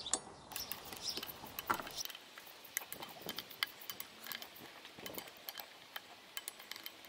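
Ratchet of a click-type torque wrench clicking as the brake disc bolts on a motorcycle wheel are tightened to 20 newton metres: a run of irregular, sharp metallic clicks.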